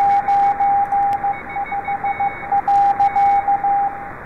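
Morse code (CW) signal received on a software-defined radio: a single beeping tone keyed on and off in dots and dashes over steady receiver hiss.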